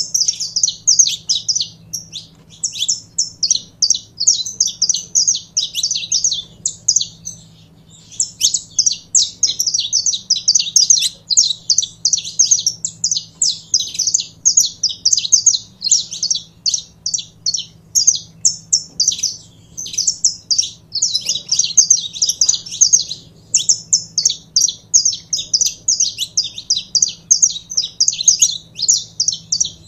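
Saffron finch singing: long, fast runs of high chirping notes, broken by short pauses about two seconds in and around seven seconds.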